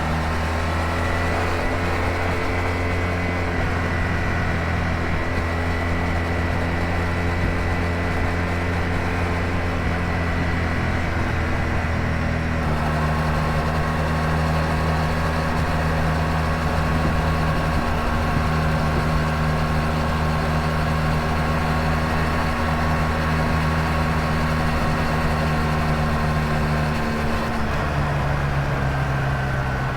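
Honda VF1000R's liquid-cooled V4 engine running at a steady speed, with a faint high whine over it. The sound shifts abruptly about 13 seconds in and changes again near the end.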